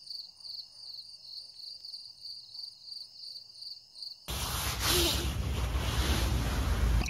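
Insects chirping outdoors: a high, pulsing chirp repeated about three to four times a second. About four seconds in it cuts to a louder, even rushing noise with a deep rumble, like wind on the microphone.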